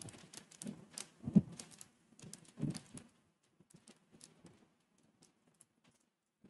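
Computer keyboard typing: irregular keystrokes, densest in the first three seconds, thinning out and stopping shortly before the end.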